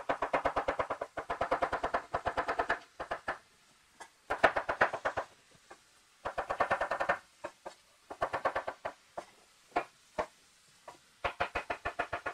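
Chef's knife slicing bell peppers into thin strips on a wooden cutting board: quick runs of knocks, about ten a second, broken by short pauses.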